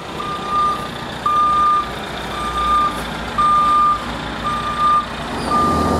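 Backup alarm of a reversing vehicle beeping steadily: six single-pitch beeps, about one a second, over a low rumble.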